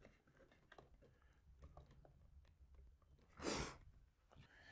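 Near silence, with faint light clicks from a propeller nut being spun by hand onto an RC model's motor shaft, and a short rushing noise about three and a half seconds in.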